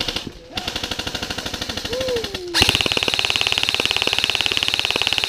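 Airsoft electric rifle firing on full auto: a rapid, even rattle of shots in bursts, broken briefly just after the start and again about two and a half seconds in, then a louder continuous burst.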